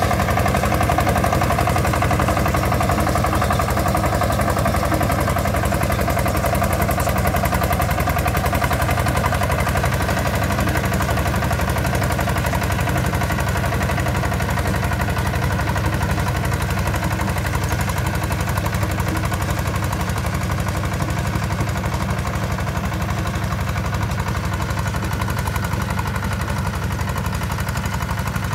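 Single-cylinder diesel engine of a two-wheel walking tractor running steadily as it pulls a tiller across the field, a fast even chugging that fades slightly as the tractor moves away.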